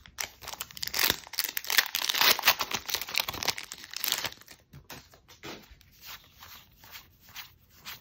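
Foil Pokémon booster pack wrapper torn open by hand: dense crinkling and tearing for about four seconds, then fainter flicks and rustles as the cards are handled.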